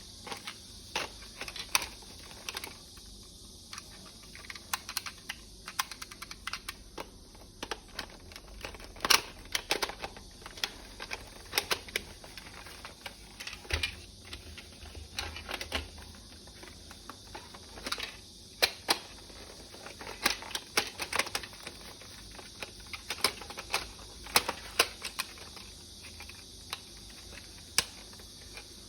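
Irregular clicks and taps of plastic toy rifle parts being handled, some in quick clusters, over a faint steady hiss.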